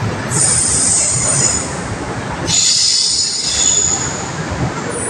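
Freight train's container wagons rolling past close by, their steel wheels squealing high on the rails in two spells of a second or more each, over the steady rumble of the wagons.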